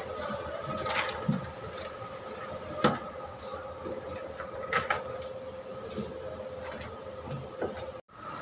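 A steady machine hum holding two tones, with scattered knocks and clatter from fish being handled in a plastic crate.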